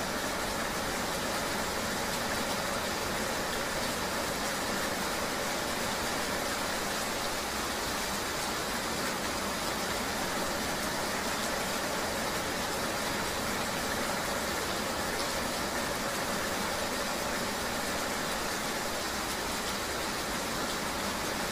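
Steady rainy-day riding ambience: an even hiss of rain with a vehicle engine humming underneath, unchanging throughout.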